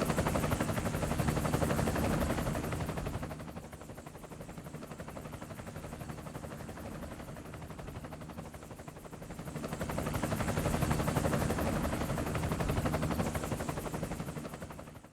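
Cinematic sound effect of a rapid, evenly pulsing chop, like a helicopter rotor or automatic fire. It is loud at first, drops back for several seconds, swells again, then cuts off abruptly at the end.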